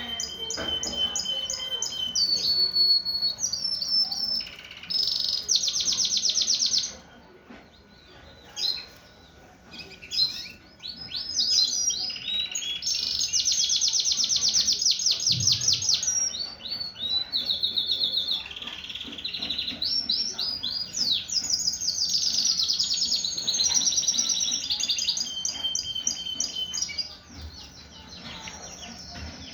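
Clear yellow Shirazi canary singing in full breeding condition: long phrases of fast rolling trills and repeated high notes, broken by a pause about a quarter of the way in and another near the end.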